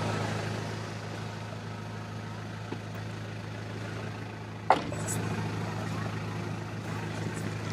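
Toyota Prado engine idling steadily, heard from inside the cabin, with a single sharp knock a little past halfway.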